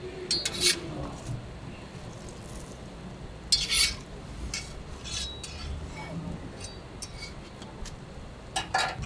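Long metal crepe spatula scraping and clinking against a crepe griddle as a crepe is lifted and folded, with sharp clinks a little under a second in, about three and a half seconds in, and near the end.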